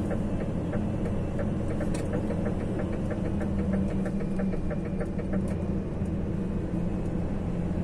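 DAF CF410 truck's engine and road noise heard inside the cab: a steady low drone. For a few seconds in the middle, a quick, even ticking runs over it, about five or six ticks a second.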